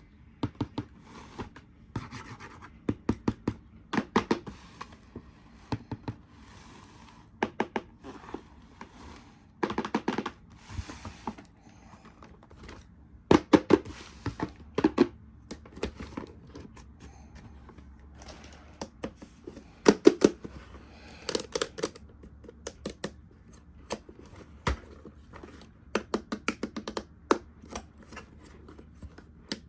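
Hands opening and handling toy packaging: irregular bursts of sharp clicking, crinkling and scratching, a few of them louder than the rest.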